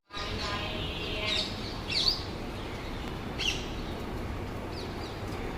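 Birds chirping: a handful of short, sharp calls, a second or so apart, over a steady background hiss.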